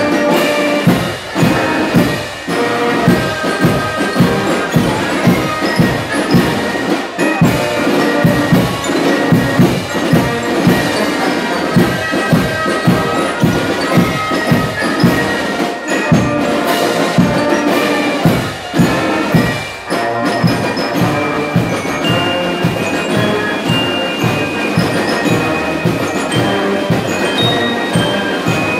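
A drum and fife corps (Tambourcorps) playing a march: massed fifes carry the melody over a steady snare-drum beat.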